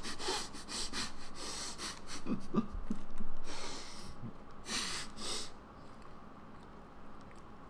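A man's heavy, breathy exhalations, about four of them, the loudest about three seconds in, as he reacts to a bite of cookie.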